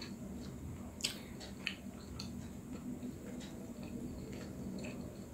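Faint scattered soft clicks and small wet ticks of eating, as a steamed momo is handled and dipped into runny achar, with a sharper click about a second in and another shortly after.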